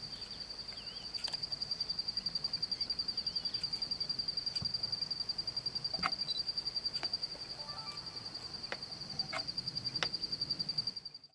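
A cricket calling steadily: a continuous high-pitched trill of rapid, even pulses, with a few faint clicks in the later seconds. It cuts off suddenly at the very end.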